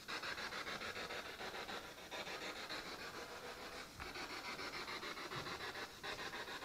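Spirit box sweeping through radio stations: a steady hiss of static chopped into fast, even pulses, with a short break about every two seconds.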